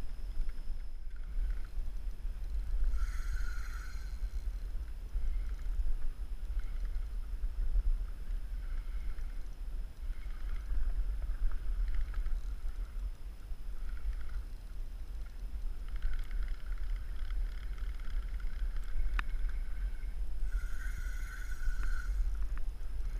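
Wind rumbling on the camera microphone aboard a fishing kayak at sea, with on-and-off mechanical whirring every second or two. The whirring is longest and loudest about three seconds in and again over the last several seconds, while a fish is being played on a bent rod.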